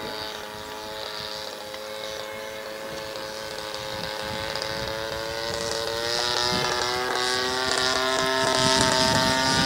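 Single-cylinder two-stroke 20cc DLE petrol engine of a radio-controlled Cessna L-19 Bird Dog model plane droning steadily in flight, growing steadily louder.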